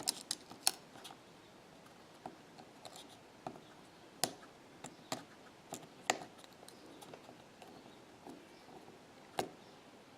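Small sharp clicks and taps, irregular and scattered, as the iPhone 6's flex-cable connectors are unclipped from the logic board one at a time with a tool. The loudest clicks come about 4, 6 and 9 seconds in.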